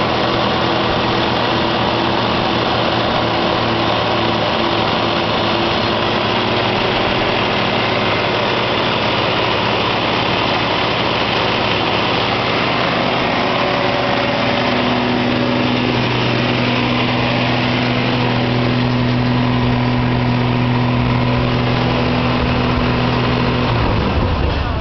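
Vehicle engine running with a belt-driven York onboard-air compressor pumping the air tank up toward 150 psi. A lower hum grows stronger about halfway through, then cuts off near the end as the compressor stops at full pressure.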